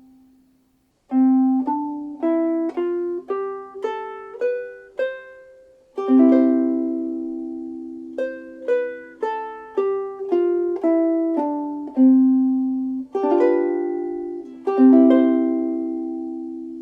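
Solid African mahogany Ditson-style soprano ukulele played fingerstyle: a rising scale of single plucked notes, about two a second, climbing an octave from the open C string, then a ringing chord, a falling run of single notes and several strummed chords near the end.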